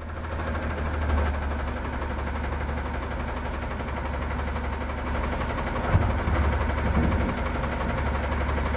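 Truck engine idling steadily, with a single sharp knock about six seconds in.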